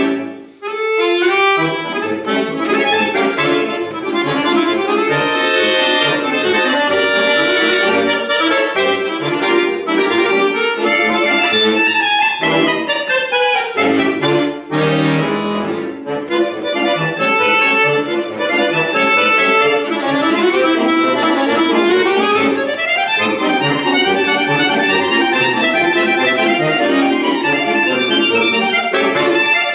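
Solo button accordion (bayan) playing a fast, busy passage of runs and chords, after a brief break just after the start. Partway through comes a quick sweeping downward run.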